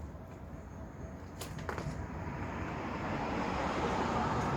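A passing road vehicle, growing louder over a low steady rumble. Two light clicks come about a second and a half in.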